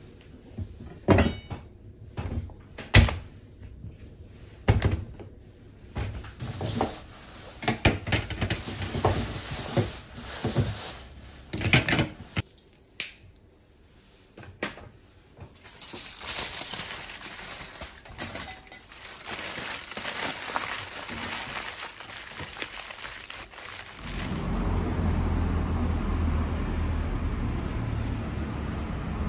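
Kitchen knife chopping mushrooms and peppers on a wooden cutting board, sharp separate knocks. Then aluminium foil crinkling as it is folded around potatoes for about eight seconds. A steady low rumble takes over near the end.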